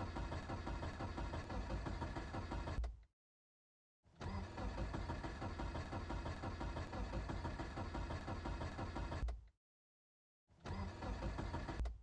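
Car engine cranking on the starter without catching, in repeated attempts of about four, five and one and a half seconds, each cut off abruptly: a cold-morning no-start.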